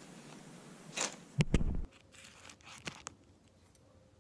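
Plastic packaging crinkling and rustling as parts are handled, with a heavy thump about a second and a half in, followed by a few light clicks and knocks.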